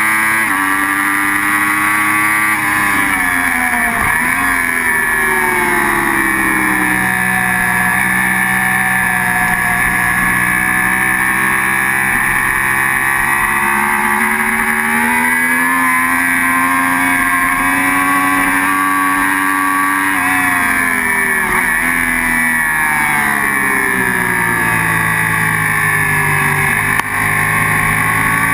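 Sport motorcycle engine running hard on a race track, heard from an onboard camera, with wind rush. The revs fall in steps under braking and downshifts at about 4 seconds and again from about 20 seconds, then climb back up out of the corners.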